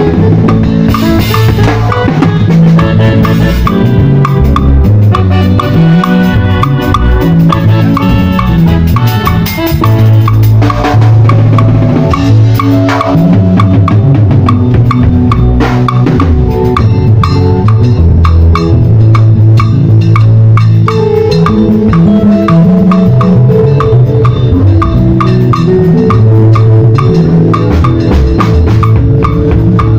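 Drum kit played in a steady groove, with kick and snare, over music with held bass and other pitched notes. Loud throughout.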